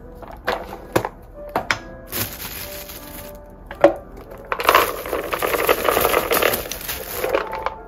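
Soft background music with a few sharp clicks and taps from handled kitchen containers and utensils, then a few seconds of dense rustling noise about halfway through.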